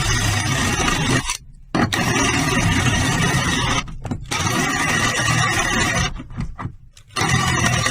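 A small motor-driven power tool running in bursts, stopping sharply three times and starting again each time.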